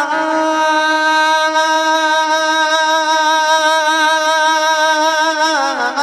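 A man singing one long held note of a naat with a slight waver in pitch. Near the end the note dips and the melody moves on.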